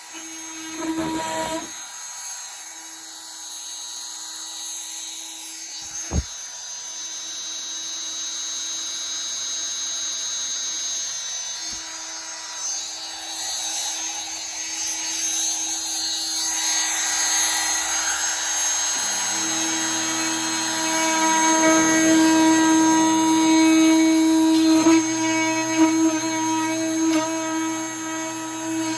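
Corded Rockwell oscillating multi-tool running steadily with a high buzz while cutting through a dishwasher's plastic tub, growing louder and heavier about two-thirds of the way in as the blade bites. One sharp knock about six seconds in.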